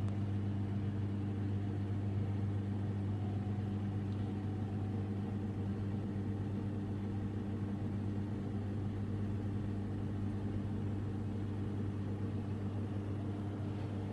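Samsung Ecobubble washing machine spinning its drum on the final spin: its digital inverter motor and drum give a steady, even hum.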